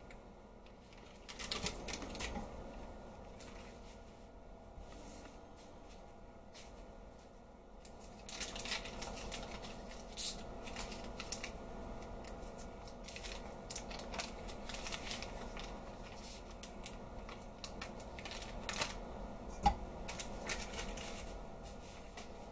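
Paper wrapper of a softened stick of butter crinkling and rustling in irregular bursts as it is peeled off, with a single soft thump near the end as the butter drops into a stainless-steel stand-mixer bowl.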